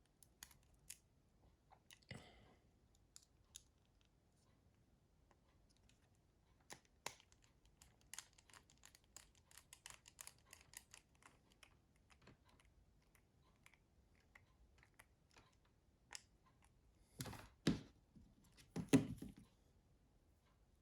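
Faint scattered clicks and taps of small tools and plastic mobile-phone housing parts being handled, with a quick run of small ticks in the middle and a few louder knocks near the end.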